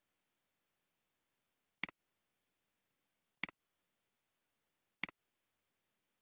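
Three sharp clicks of a computer mouse button, evenly spaced about a second and a half apart, each a quick press-and-release double click.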